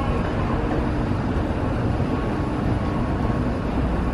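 Steady low rumble and hum of a subway station, with no sharp events.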